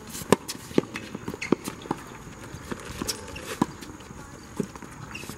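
Tennis balls struck by racquets and bouncing on a hard court during a baseline warm-up rally: a string of sharp pops at irregular intervals, the loudest about a third of a second in.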